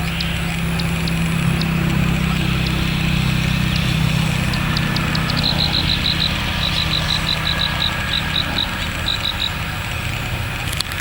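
Roadside ambience: a motor vehicle's engine hums low and steady, swelling for a few seconds and then easing off. About halfway through, a quick run of short high chirps, about six a second, sounds over it for several seconds.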